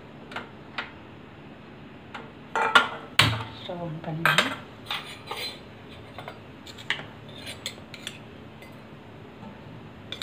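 Stainless steel kitchen utensils and pans clinking and knocking against each other, a scatter of sharp metallic clinks, busiest and loudest between about two and a half and five and a half seconds in.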